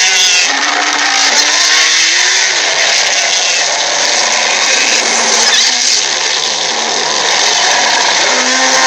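Stampede sound effect: a dense, steady din of many running animals, with a few drawn-out calls gliding up and down over it.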